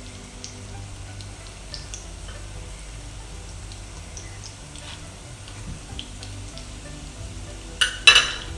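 Breaded cheese bites frying in hot oil in a pan, with scattered small pops and crackles, under quiet background music. Near the end, metal tongs strike a ceramic plate twice, sharply.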